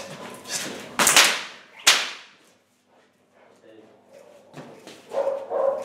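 Two sharp cracks of a training decoy's whip, a little under a second apart, each ringing briefly in the hall. A voice is heard near the end.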